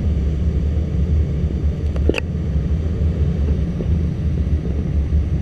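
Steady rumble of air rushing past a two-seat glider's canopy, heard inside the cockpit during a banked turn, with one short click about two seconds in.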